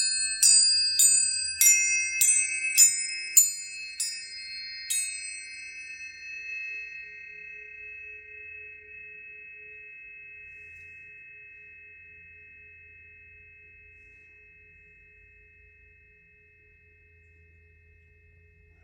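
Planetary tuning forks struck one after another, about twice a second, for the first five seconds. Their overlapping bright tones then ring on and slowly fade away.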